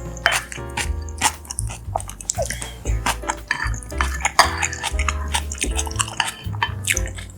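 Background music with a steady bass line, over frequent short clicks and smacks of eating: a spoon on a bowl and close-miked chewing.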